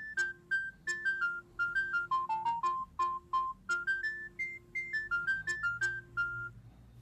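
Bird S1150 mobile phone playing a ringtone: a quick melody of short beeping notes over a held low note. The tune ends about six and a half seconds in.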